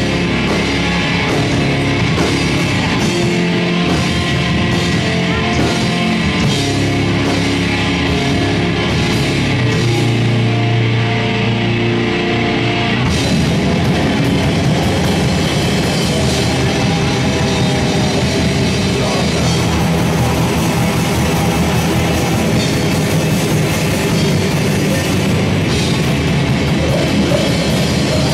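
A live metal band playing loud, with electric guitars and drums. About thirteen seconds in, the music moves from held low chords to a denser, busier passage.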